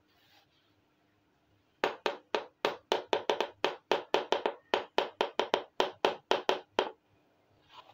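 Miniature plastic toy pot handled by hand, giving a rapid run of about two dozen sharp plastic taps and clicks at about five a second. The taps start about two seconds in and stop about a second before the end.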